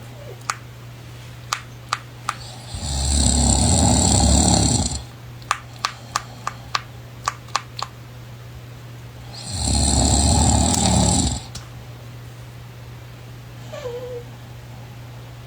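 A sleeping person snoring loudly, two long heavy snores about seven seconds apart, each lasting about two seconds. Between them comes a run of short sharp clicks.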